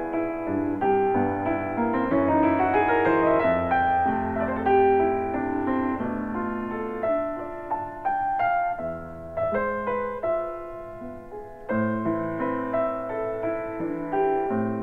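Piano music, single notes and chords at an unhurried pace, played back through a KT88 valve power amplifier with 12BH7 driver tubes.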